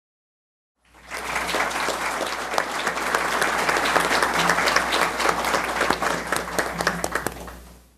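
Applause from the hall, a dense patter of many hands clapping, starting abruptly about a second in and fading out near the end, over a low steady hum.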